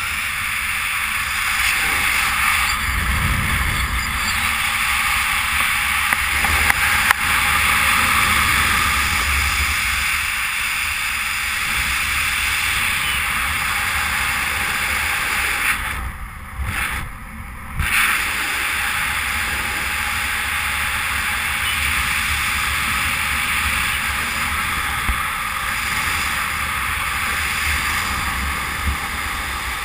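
Steady rush of airflow over the pilot's camera microphone during a fast speedflying descent, dipping sharply twice a little past halfway.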